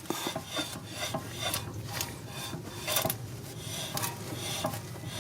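Brake pad rubbing and scraping against the rear brake rotor in a run of uneven strokes, the grinding contact of a stuck rear brake caliper that keeps the pad pressed on the disc.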